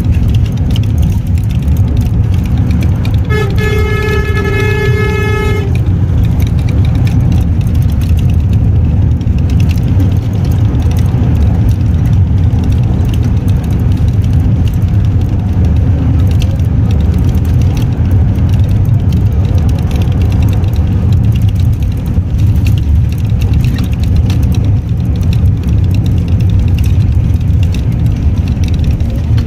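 Steady low rumble of a moving vehicle, heard from inside. About three seconds in, a horn sounds once as one steady note for a little over two seconds.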